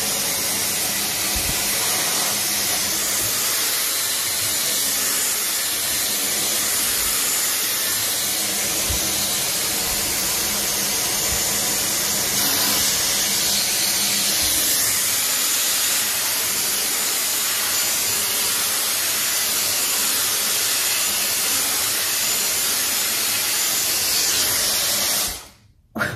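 Dyson Airwrap Complete blowing air through its flyaway attachment: a steady, loud rush of air that cuts off suddenly near the end.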